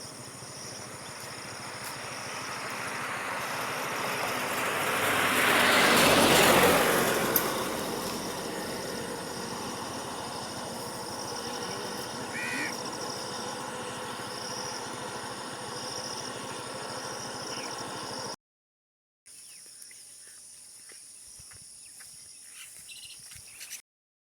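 A road vehicle passes by, its noise swelling to a peak about six seconds in and then fading, over a steady high insect drone with a brief bird chirp. After a cut about eighteen seconds in, a quieter outdoor background remains.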